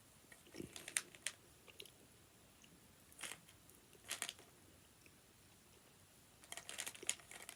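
Someone chewing a chewy Revels chocolate: faint, scattered mouth clicks and crunches, with a small cluster of them near the end.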